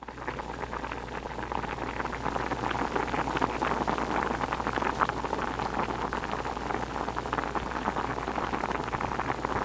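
A wide pan of red dakbokkeumtang (spicy braised chicken) broth at a hard boil: a dense, steady bubbling and popping, with a low, steady hum underneath.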